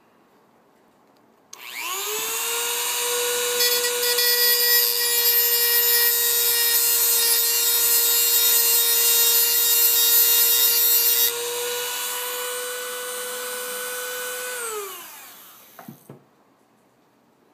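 Dremel rotary tool spinning up to a steady high whine and grinding the end of a piece of HO code 83 rail to shorten it, with a harsher grinding sound while it bites the metal. It then runs free briefly and winds down with a falling pitch, followed by a couple of light clicks.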